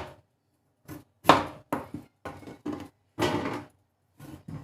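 Irregular knocks and thuds of kitchen handling, about six of them, each brief and sharp; the loudest comes a little over a second in.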